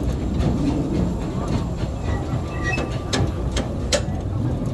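John Fowler 0-4-2 tank steam locomotive running on narrow-gauge track, heard from the footplate: a steady low rumble of the moving engine and wheels, with a few sharp clicks near the end.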